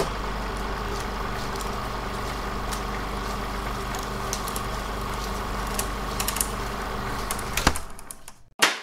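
A steady mechanical hum with hiss and a few scattered clicks, which dies away near the end and is followed by one sharp, loud clap.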